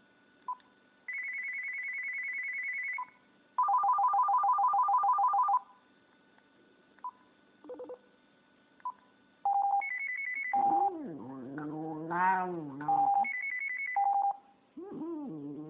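A mobile phone plays a run of ringtones and alert beeps: a buzzing ring, then a louder trilling ring, then scattered beeps. About eleven seconds in, a Japanese Spitz starts howling along with the phone's beeping, its howl sliding up and down in pitch, and it starts howling again just before the end.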